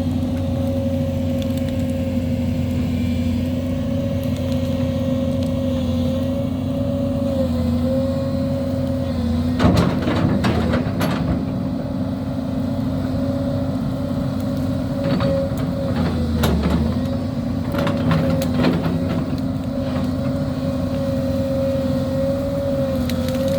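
Excavator's diesel engine running steadily, with clusters of sharp knocks and cracks about ten seconds in and again from about fifteen to nineteen seconds in as it handles brush; the engine note dips briefly under load near the second cluster.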